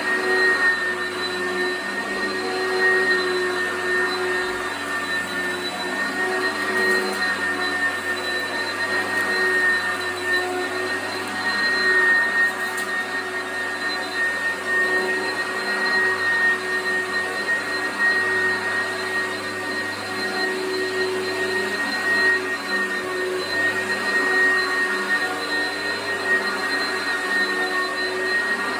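Oreck XL commercial upright vacuum cleaner running steadily over carpet: a constant rushing hiss with a steady high-pitched whine on top.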